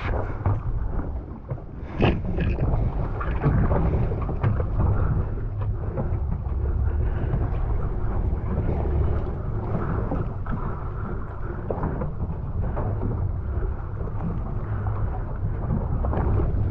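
Sportfishing boat's engine running with a steady low rumble, wind buffeting the microphone, and a few brief knocks on top.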